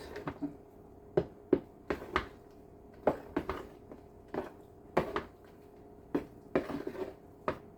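Spoon knocking and scraping against a bowl while whipped cream is stirred into Jell-o: irregular sharp clicks and knocks, about one or two a second.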